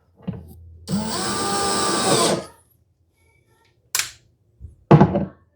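Small power drill/driver running in one steady burst of about a second and a half, driving a screw for a wooden turn button. Two short sharp sounds follow near the end.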